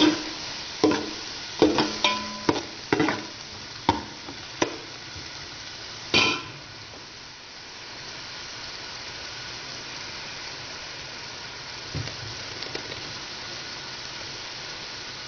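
Metal spoon stirring gizzards in soy sauce in a metal pot, clinking and scraping against the pot in quick strokes for about six seconds. After that only a steady sizzle of the simmering liquid is left.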